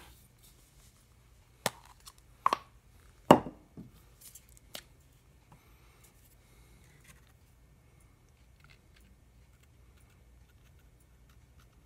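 A few light knocks and clicks from handling bottles on a wooden workbench: an aerosol can of CA glue accelerator set down and a plastic bottle of CA glue picked up and uncapped. The sharpest knock comes about three seconds in, and the handling sounds die away after about five seconds.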